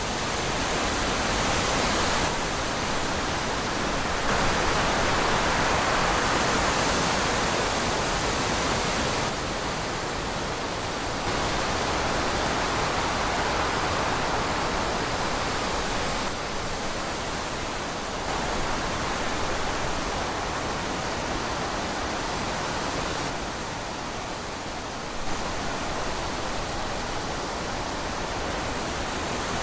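Wind rushing steadily through trees, swelling and easing in slow gusts every few seconds.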